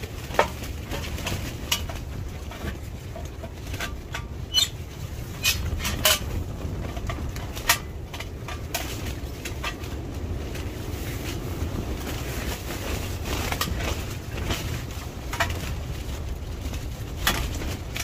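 Stainless steel stove-pipe water heater tank knocking and clinking against the steel stove top and pipe as it is shifted into place: scattered sharp metallic clicks and knocks. Underneath runs a steady low rumble of storm wind on the tent.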